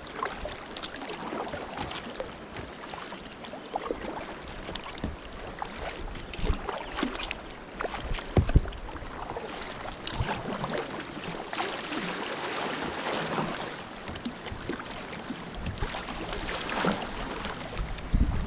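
Kayak being paddled on a river: irregular paddle splashes over a steady rush of water, one splash louder a little past the middle.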